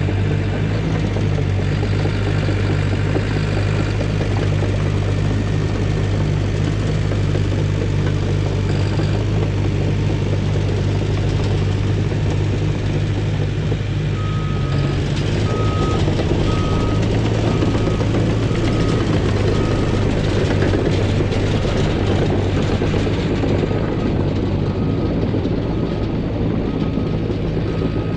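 CAT D5 crawler dozer's diesel engine running steadily under work. About halfway through, its backup alarm starts beeping, roughly one short beep every 0.7 s, as the dozer reverses.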